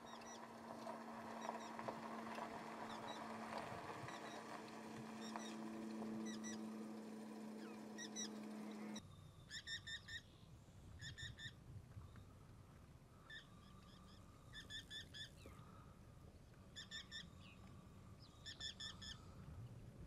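An osprey calling in flight: clusters of three to five short, high, whistled chirps, repeated every second or two through the second half. Before that, a steady low hum with scattered small bird chirps, which stops abruptly about nine seconds in.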